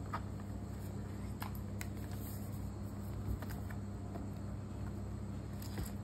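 A handful of light taps and rubs of fingers and palms on the aluminium lid of a 14-inch MacBook Pro as the closed laptop is handled and turned, over a steady low hum.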